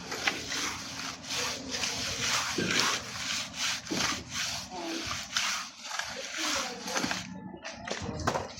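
Rhythmic scraping strokes of a hand tool worked back and forth over a surface, about two to three strokes a second, growing sparser near the end.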